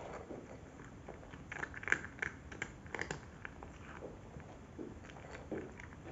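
Cat chewing dry kibble: irregular short, sharp bites, several close together between about one and a half and three seconds in.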